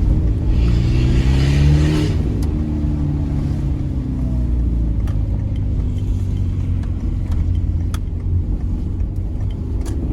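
Peugeot 206 1.4 8-valve four-cylinder running through a straight-through exhaust with no catalytic converter. It revs up under acceleration for about the first two seconds, the revs fall away, and it settles into a low, steady rumble.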